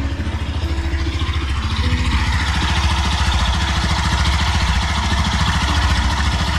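Honda CBR300R's single-cylinder engine idling steadily just after starting; this engine's crankshaft has failed. From about two seconds in, more mechanical noise joins the low, even pulsing of the idle.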